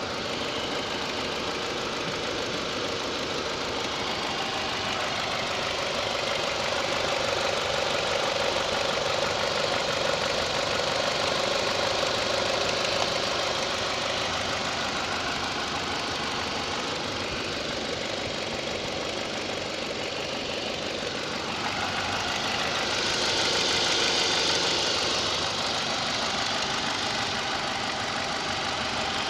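Renault Mégane II's 1.4-litre petrol engine running steadily with a slight knock that shows up when the engine is hot. The sound swells briefly about three-quarters of the way through.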